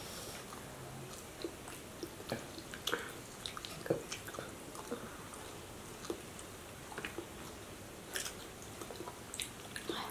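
Close-up eating sounds from fried fish being eaten by hand: chewing and mouth smacks. These come as irregular short clicks, with a few louder ones.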